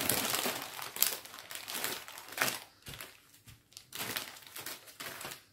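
Small plastic bags of diamond painting drills crinkling and rustling as they are handled, in several bursts with a quieter stretch about midway.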